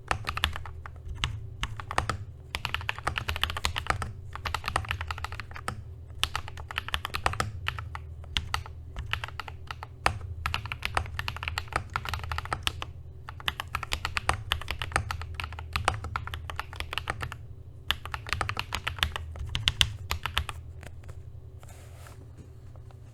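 Typing on a TM680 mechanical keyboard fitted with hand-lubed Akko CS Matcha Green switches and PBT keycaps: fast runs of keystrokes in bursts with short pauses, stopping a couple of seconds before the end.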